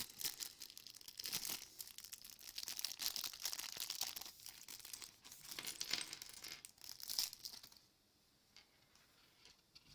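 Plastic Lego minifigure blind bag crinkling and rustling as it is torn and handled, with a dense run of crackles that stops about eight seconds in.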